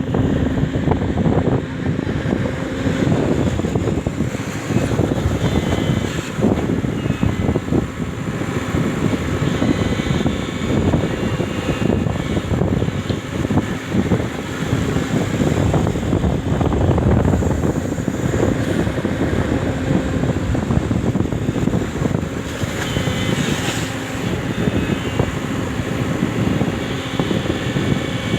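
Hyundai 140 excavator's diesel engine running steadily as the machine works, with a faint steady hum under the engine noise and a brief higher-pitched hiss or clank about three-quarters of the way through.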